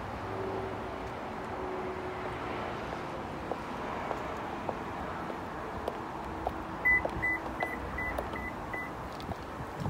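Six short, evenly spaced high electronic beeps, each at the same pitch, starting about seven seconds in and lasting about two seconds, over steady outdoor background noise with faint ticks.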